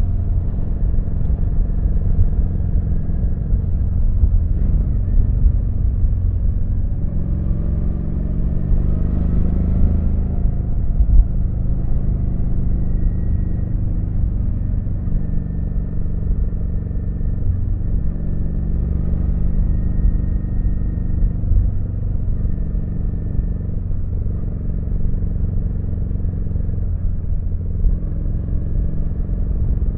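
Kawasaki VN900 V-twin engine running steadily under way over a low rumble. Its pitch rises and falls with the throttle, most noticeably about a third of the way through.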